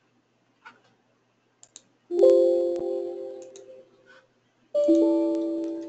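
A few faint mouse clicks, then two electronic chime chords from the computer, one about two seconds in and a second near the end. Each is struck once, piano-like, and fades away over a second or two.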